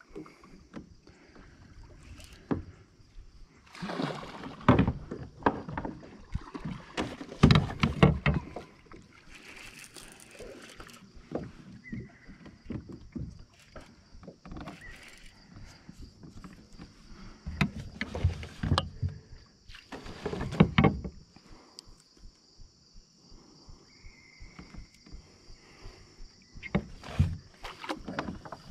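Water splashing and sloshing against a plastic fishing kayak in irregular loud bursts, with knocks on the hull, as a hooked largemouth bass thrashes alongside and is brought to the landing net.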